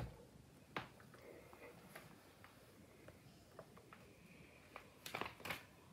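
Near silence: room tone with a few faint taps and a short soft rustle near the end, from hands being moved on the table.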